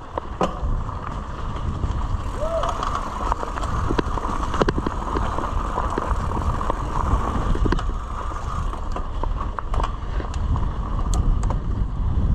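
Mountain bike rolling over a dirt trail: steady tyre and wind rumble, with scattered clicks and rattles from the bike over bumps.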